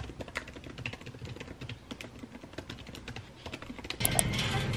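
Fast typing on a laptop keyboard with long fingernails, a quick run of light key clicks. About four seconds in it gives way to the louder, busier noise of a grocery store.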